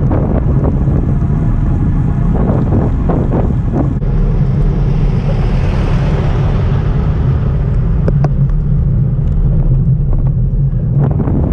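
Wind buffeting the microphone over a steady low road rumble while riding a road bicycle, with scattered knocks near the start and end. A hiss swells and fades about halfway through.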